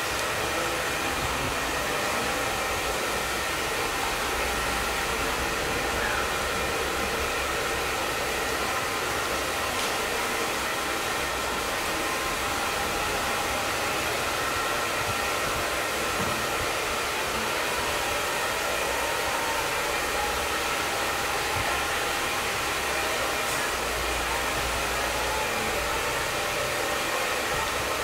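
Steady hiss of water spraying from a hand-held shower head onto hair and into a shampoo basin.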